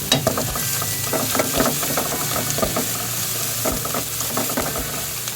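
Ginger and garlic sizzling in hot oil in a pan, with a cooking utensil scraping and clicking against the pan as they are stirred.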